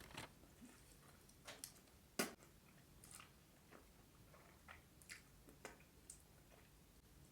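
A person chewing food close to the microphone: soft, irregular mouth clicks and wet smacks, with one sharper click about two seconds in.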